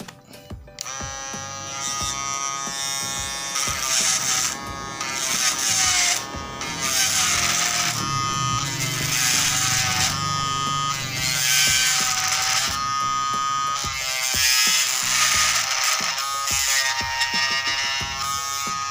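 Small DC motor of a homemade mini lathe starts about a second in and runs with a whine whose pitch wavers. A knife blade scrapes against the spinning float blank in repeated passes of a few seconds each, turning it down to shape.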